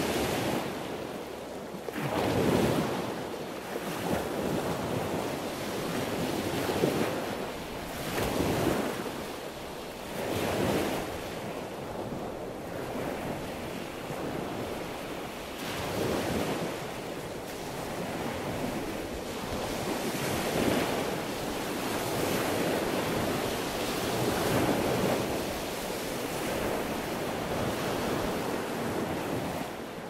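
Sea waves washing in a continuous wash of surf, swelling and easing every few seconds as each wave breaks.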